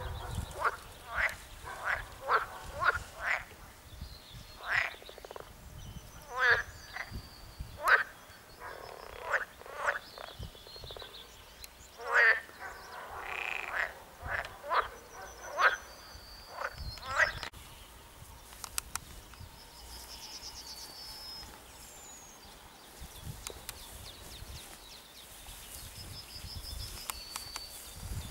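Frogs croaking in a pond, a chorus of short repeated calls that dies away about two-thirds of the way through. Faint high chirps sound now and then over it.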